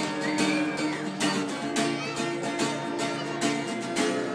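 Acoustic guitar strummed in a steady rhythm, chords ringing on under the strokes.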